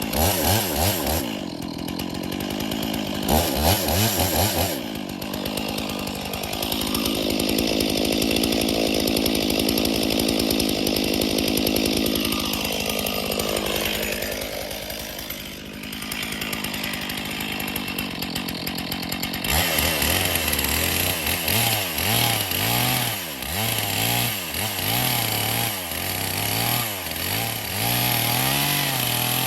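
Stihl chainsaw cutting into a cedar trunk, most likely sawing the undercut notch. It revs in two short bursts, then runs steadily under load for about twelve seconds. Its pitch sags partway through as the chain bites, and it then revs up and down repeatedly.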